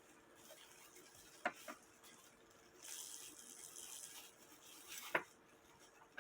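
Bare cuckoo clock movement tripped into its cuckoo cycle: a few faint clicks from the levers and a short soft whir of the gear train running about three seconds in. No cuckoo call, since the bellows are not attached to the levers.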